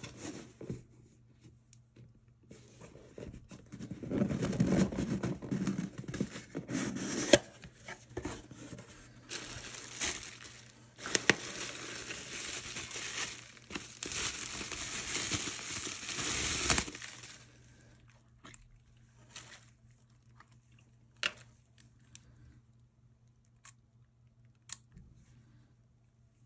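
Bubble wrap and a cardboard box being opened and unwrapped: crinkling and crackling for about fifteen seconds, with a few sharp snaps. This stops suddenly, followed by scattered light clicks as a large-format lens is handled.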